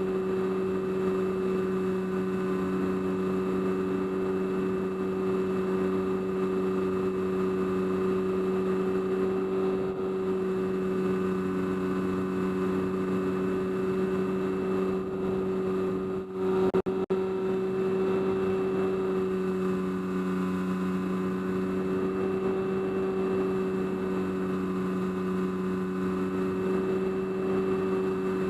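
Motor and propeller of an FPV model aircraft running at a steady cruise, heard from the onboard camera as a constant droning hum. About sixteen seconds in it briefly dips, with a couple of sharp clicks.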